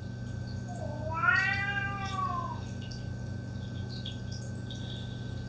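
A domestic cat meows once about a second in: a single drawn-out call of under two seconds that rises and then falls in pitch.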